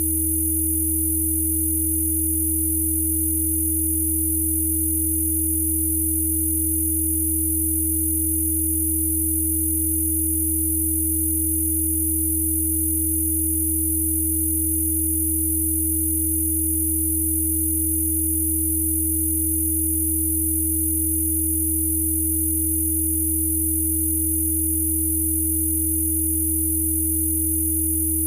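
Synthesized Spooky2 Rife frequency tones for bruxism: steady electronic sine tones that do not change, layering a low hum, a mid tone and a very high whine.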